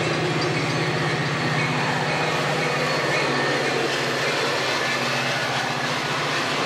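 Metra commuter train passing close by: the diesel locomotive's engine gives a steady low hum, then the bi-level gallery coaches roll past with a steady rush of wheel and rail noise.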